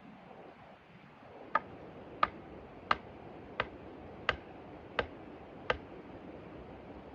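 A run of seven sharp, evenly spaced knocks, about three every two seconds, beginning about a second and a half in, over a steady faint hiss.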